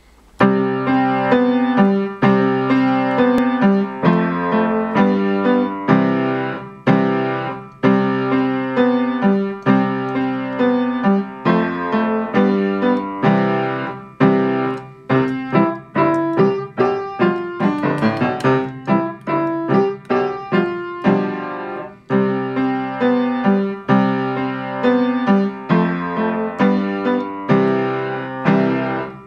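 Steingraeber & Söhne upright piano played with both hands: a brisk beginner's piece in C major, melody and accompanying notes struck in a steady rhythm, with a final chord near the end.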